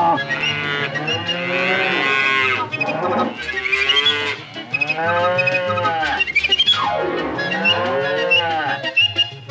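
Cattle mooing, about four long calls in a row, each rising and then falling in pitch, over background music.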